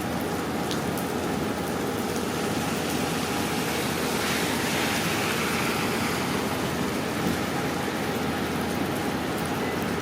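Steady rain falling, a continuous even wash with faint scattered drop ticks, swelling briefly louder midway.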